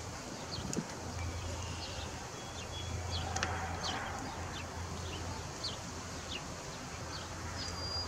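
Small birds chirping, many short scattered chirps, over a steady low hum.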